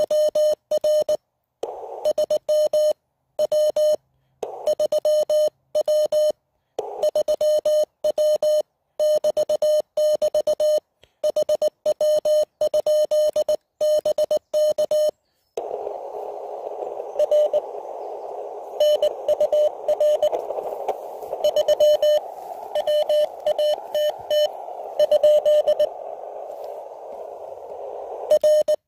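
A (tr)uSDX QRP transceiver's speaker sounding Morse code as one steady tone keyed on and off. For the first half the gaps between dots and dashes are dead silent, the sidetone of the set's own transmission. From about halfway on, the keyed tone of the other station comes in over a steady hiss of band noise.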